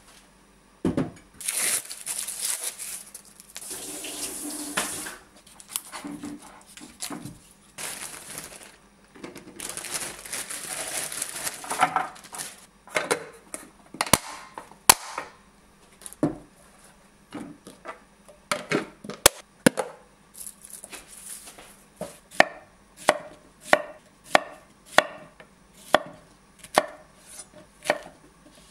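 Kitchen prep sounds: bursts of rustling and handling noise in the first half, two sharp clicks as a clip-lid plastic food container is opened, then a chef's knife slicing a zucchini into rounds on a wooden cutting board, about one stroke a second, in the last third.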